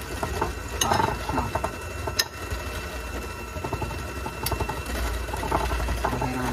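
Electric hand mixer running steadily, its beaters churning a thick creamed butter, sugar and egg cookie dough in a glass bowl. A few sharp clicks of a fork against the glass bowl cut through.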